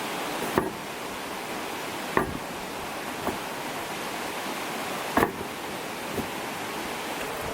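Steady rushing background noise with five sharp knocks or clacks, the loudest a double knock about five seconds in.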